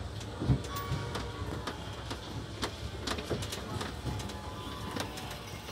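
Tourist road train running through town streets: a low rumble of the ride with many small irregular clicks and rattles from the open carriage. Faint music and voices run underneath.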